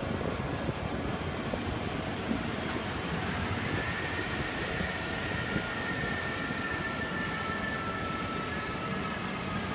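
Jet engines of a Boeing 777-300ER running, a steady rush of noise with a thin turbine whine that comes in about four seconds in and slowly falls in pitch.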